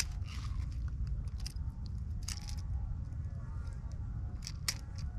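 Fishing pliers clicking and scraping as they work a hook out of a fish's mouth: scattered short, sharp clicks, over a steady low rumble.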